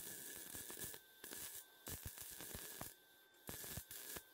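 Wire-feed (MIG) welding arc crackling and hissing in about five short bursts with brief pauses between, as steel rods are tack-welded.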